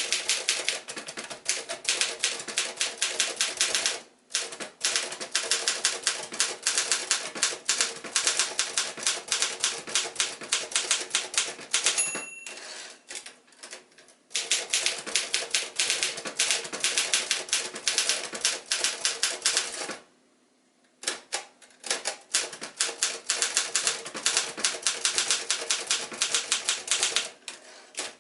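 A 1965 Remington Mark II portable typewriter (a rebodied Torpedo 18) being typed on in fast runs of sharp key and typebar clacks. About twelve seconds in, the margin bell rings once and the typing stops for a moment. There is another short pause a little after twenty seconds.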